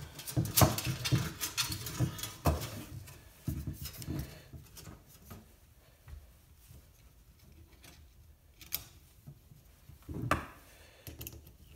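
Clicks, knocks and rubbing from steel tape-measure elements and PVC pipe being handled on a plywood workbench. The sounds are busy for the first few seconds, then give way to a few scattered taps.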